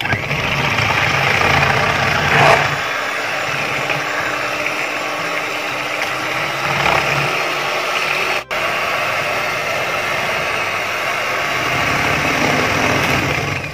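Electric hand mixer running steadily at full speed, its twin beaters whipping eggs and vanilla essence in a plastic bowl until pale and frothy. The sound cuts out for an instant about eight and a half seconds in.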